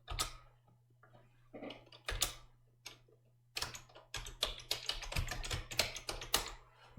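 Typing on a computer keyboard: a few separate keystrokes, then a quick run of keys about halfway through, over a faint steady hum.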